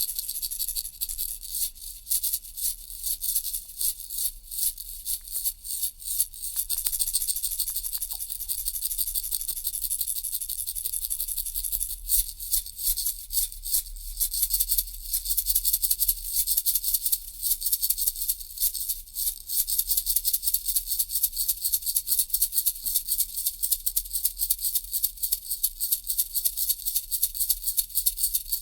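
Baby rattle shaken continuously, a bright, high rattling of many quick strokes. The shaking is uneven at first and from about halfway becomes louder, fast and steady.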